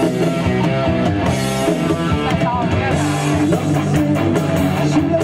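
Rock band playing: guitar chords and a drum kit beating steadily.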